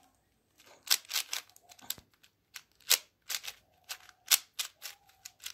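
A plastic 4x4 speed cube being turned by hand: irregular sharp clicks and clacks as its layers turn and snap into line, some in quick runs of two or three.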